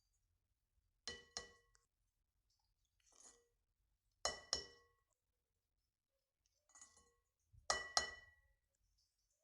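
Utensil clinking against a bowl, three times in quick pairs of taps about three seconds apart, each tap ringing briefly, with fainter scrapes in between.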